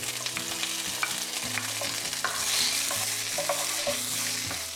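Sliced onions sizzling in hot olive oil in a nonstick frying pan, with scattered clicks and scrapes of a spoon stirring them.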